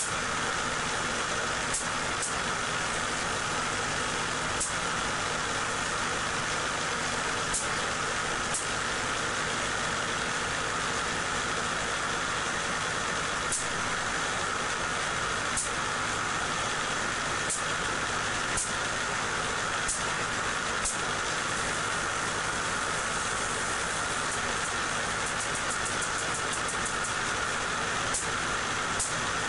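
Home-made Van de Graaff generator running, its salvaged ice-machine motor driving the rubber belt with a steady mechanical noise. Sharp snapping clicks of static sparks jumping from the steel sphere to a hand held near it come every second or two, then crowd into a quick series near the end.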